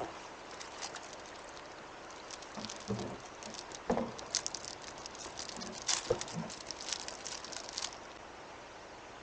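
A light patter of crackly clicks with a few soft knocks among them, starting about two and a half seconds in and stopping near the eight-second mark.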